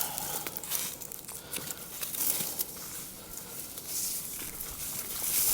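Dry leaves and brush crackling and rustling, with many small clicks and snaps scattered through.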